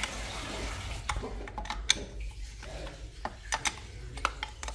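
Several sharp metal clicks and clinks from a wrench loosening the bolts that hold a water booster pump to its pipe fittings. A light hiss of water leaking from the pump body runs through the first second.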